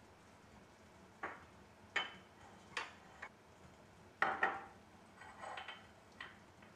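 Light taps and clinks of a small wooden spoon against a glass jar and small ceramic serving dishes, about eight in an uneven row, with a short scrape about five and a half seconds in as thick paste is spooned out of the jar.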